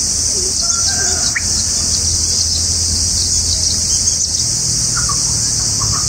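A steady high-pitched insect drone with a few short bird chirps scattered over it, a rising chirp about a second in and a couple more near the end.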